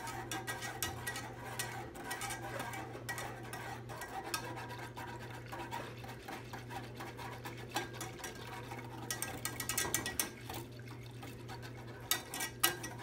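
Metal wire whisk stirring gravy in a nonstick saucepan: a quick, continuous run of light clicks and scrapes of wire against the pan, over a steady low hum.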